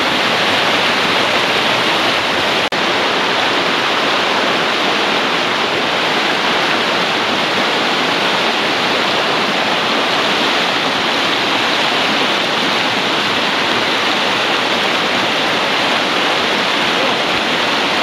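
Mountain trout torrent rushing over rocks in white-water rapids: a steady, loud rush of water, with a split-second dropout a little under three seconds in.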